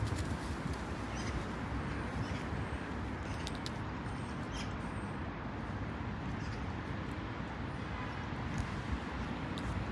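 Steady low background rumble with a few faint, brief clicks scattered through it.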